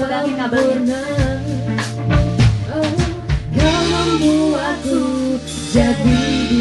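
A woman singing into a handheld microphone over backing music with a steady beat. The accompaniment grows fuller and brighter about three and a half seconds in.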